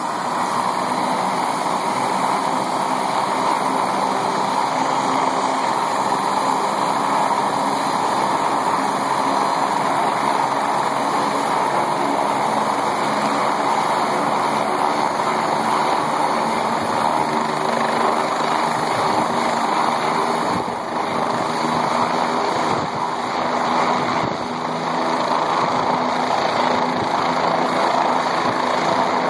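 Medical helicopter's turbine engine and rotors running steadily on the helipad before lift-off, with two brief dips in loudness about two-thirds of the way through.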